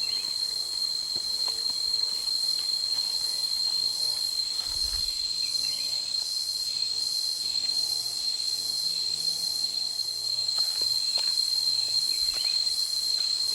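Steady, unbroken high-pitched drone of rainforest insects.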